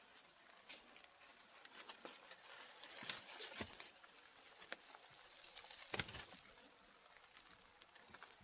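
Small wood fire crackling faintly: irregular sharp pops and ticks over a soft hiss, the loudest pop about six seconds in.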